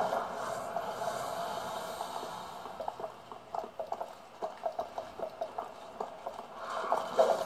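Video game audio played through laptop speakers: a faint steady ambient wash, then from about three seconds in a run of short, irregular clanking footsteps, about three or four a second, as an armoured character walks on cobblestones.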